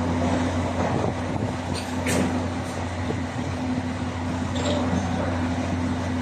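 Heavy diesel machinery running steadily with a low, even hum. A couple of brief metallic clanks come about two seconds in.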